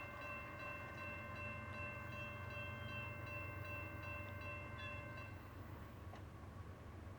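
Locomotive horn sounding one steady held note, faint, cutting off about five seconds in, over a low continuous rumble.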